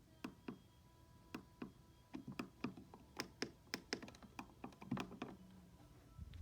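Plastic buttons on a weather radio clicking as they are pressed in a quick, irregular run, about three a second, some with a soft low thump.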